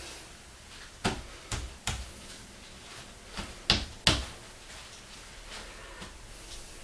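A handful of short, sharp knocks and clicks from objects being handled and set down on a hard surface, irregularly spaced, the two loudest close together about four seconds in.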